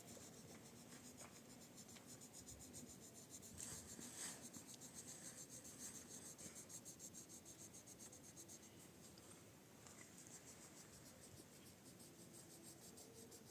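Faint, fast, regular scratching, barely above near silence.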